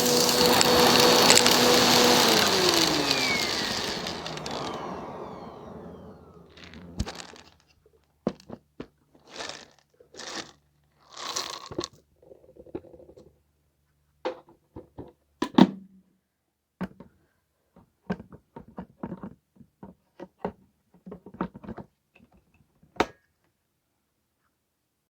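Bissell vacuum cleaner switched off, its motor whine falling in pitch and fading over about five seconds as it spins down. Then scattered clicks, knocks and short rustles of the machine and its parts being handled.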